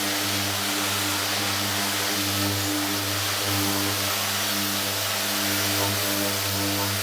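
Power sander running steadily on cured clearcoat with 400-grit paper, lightly knocking down orange peel: a constant motor hum under an even sanding hiss.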